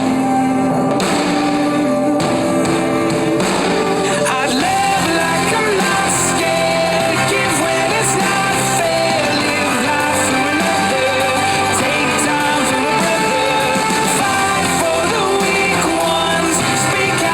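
Pop-rock song with a sung vocal over guitar and drums.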